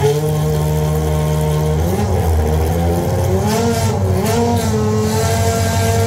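V10 engine of a 2000 Prost AP03 Formula One car running while the car stands still. It idles steadily, then about two seconds in it is given a few light throttle blips, the revs rising and falling before settling slightly higher.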